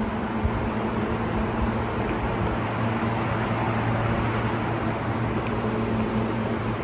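A steady mechanical drone with a low, even hum underneath.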